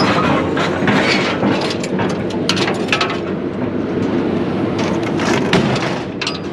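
Scattered sharp clicks and clatters of a tie-down strap and scrap metal being handled on a small utility trailer, over a steady low rumble.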